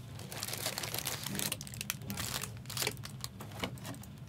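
Plastic wrapping on a sealed trading-card hobby box crinkling and crackling as hands tear it open, a busy run of irregular crackles.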